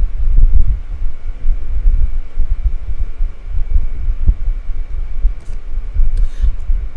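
Low, uneven rumbling and throbbing picked up by the laptop microphone, with a short hiss about six seconds in.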